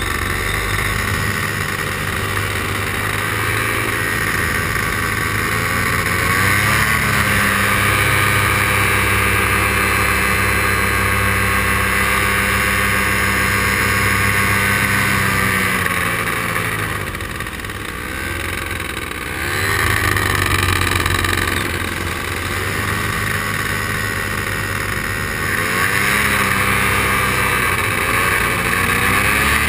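Paramotor engine and propeller running steadily in flight, the pitch rising and falling several times as the throttle changes, throttled back briefly a little past halfway and then opened up again.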